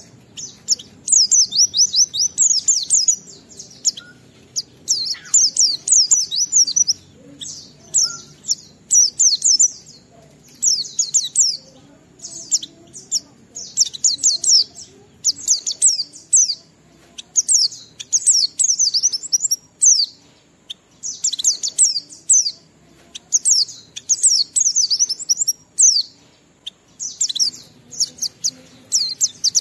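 White-eye (pleci) singing its full, continuous 'ngalas' song: fast, high twittering phrases of a second or two, repeated with short pauses.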